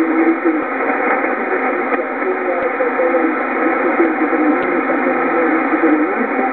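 Shortwave receiver tuned to Radio Huanta 2000 on 4747.10 kHz in LSB, giving a weak, distant broadcast. Faint programme audio is buried under steady hiss and static, and the sound is thin and narrow.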